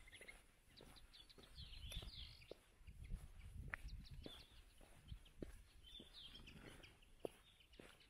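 Footsteps on a stone-paved path, about two steps a second, with short high bird chirps in two brief bursts, around two seconds in and again near six seconds.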